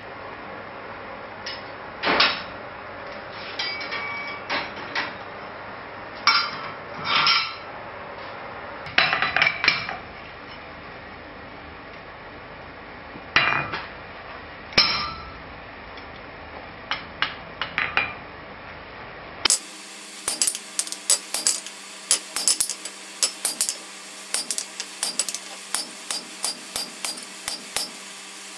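Scattered clanks and short ringing taps of steel tools. Then, about two-thirds of the way in, a steady run of hammer blows starts, about three a second, striking a hand-held top tool set on a glowing-hot steel bar over a bottom tool on the anvil.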